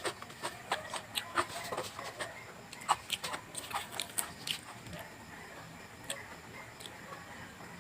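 A person chewing and biting vegetables close to the microphone: a run of short, irregular mouth clicks and crackles, busy for the first half and sparser towards the end.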